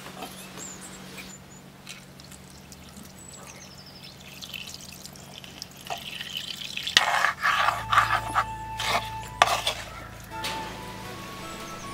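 Water poured from a clay jug into a clay cooking pot of spiced fish and stirred with a wooden spoon: splashing and sloshing with knocks of the spoon, heaviest from about seven to ten seconds in. Background music comes in near the end.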